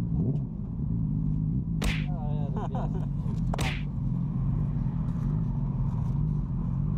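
Motorcycle engine running at a steady cruising speed under heavy wind rumble, with two short sharp whooshes about two and three and a half seconds in.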